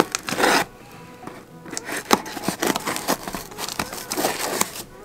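A box-opening knife slicing open a box in short, irregular scraping strokes, with background music playing underneath.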